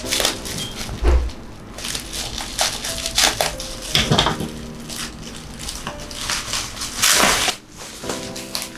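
Speaker packaging being opened and handled: a string of short rustles and scrapes, with a longer, louder rustle about seven seconds in.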